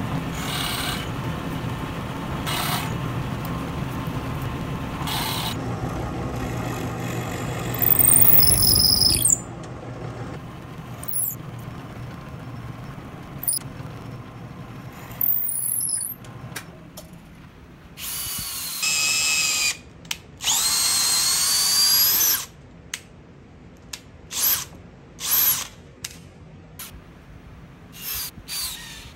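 Benchtop drill press running steadily as its bit bores holes through a wooden board, with a brief louder spell about eight seconds in. After that come several short, separate drill runs, one with a rising whine as it spins up.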